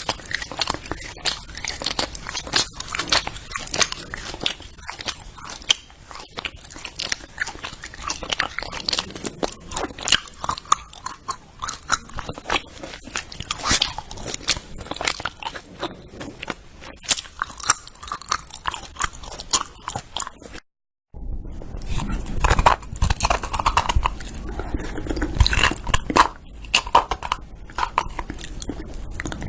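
Close-up chewing and crunching: a dense run of wet, irregular clicks and crunches. About two-thirds of the way through there is a brief gap, after which the chewing resumes deeper and fuller.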